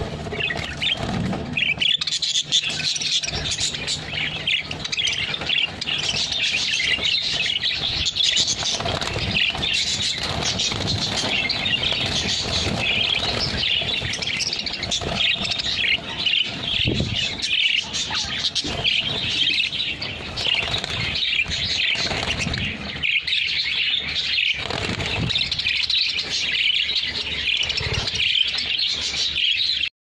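A flock of budgerigars chattering and chirping all at once, a dense, continuous twittering of many birds.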